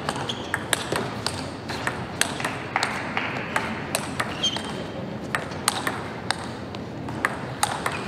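Table tennis rally: sharp clicks of the celluloid-type ball striking the rubber-faced rackets and bouncing on the table, coming a couple of times a second, over steady background noise.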